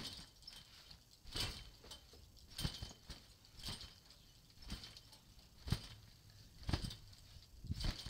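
Someone bouncing steadily on a trampoline: a thump about once a second as the jumper lands on the mat, picked up through the mat by the camera lying on it.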